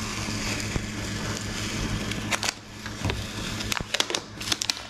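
Plastic masking tape being peeled off freshly painted bodywork: a steady rustling hiss, then a run of sharp crackles and ticks from about two and a half seconds in, over a steady low hum.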